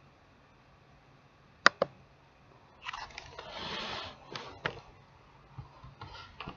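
Two sharp clicks in quick succession, then about a second and a half of rustling handling noise with a few more clicks, against quiet room tone.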